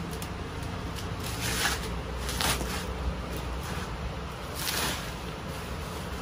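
Bubble wrap and a cardboard box being handled: plastic rustling and crinkling as the box is pulled out of its wrapping, with three louder swishes.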